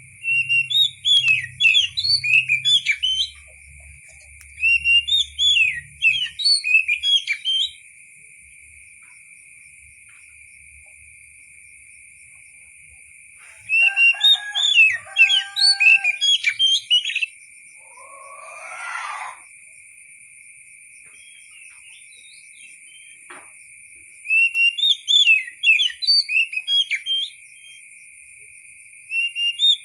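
Oriental magpie-robin singing in repeated bursts of rapid, varied whistled and chirping notes, each burst a few seconds long with pauses between. A steady high-pitched tone runs underneath, and a brief swelling rush sounds about two-thirds of the way through.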